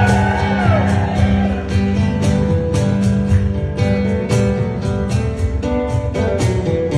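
Acoustic guitar strummed in a steady rhythm, an instrumental passage of a slow live song with no singing.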